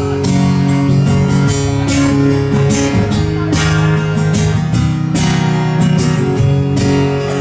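Acoustic guitar strummed live, a steady chordal introduction to a song before the singing comes in.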